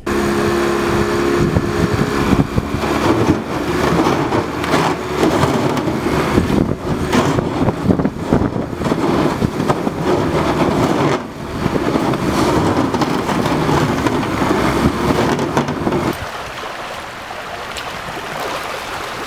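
Outboard motor on a pontoon boat running hard, its propeller churning up spray, with rough noise over it, loud and unbroken until it cuts off about 16 seconds in. After that, the quieter steady rush of a shallow stream.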